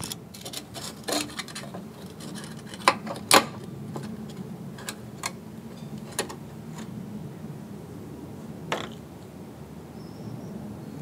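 Scattered light metal clicks and clinks, the two sharpest about three seconds in, as a steel sharpening strip with a wire spring clip is handled and fitted against the bottom blade of a cylinder lawnmower, over a steady low hum.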